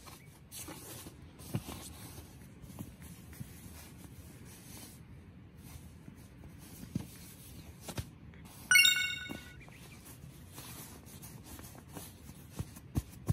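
Rustling and light knocks of an inflatable air pillow and a sleeping bag being handled and pressed by hand. About two-thirds of the way through comes one short, loud high-pitched tone with overtones, like a squeak or a chime.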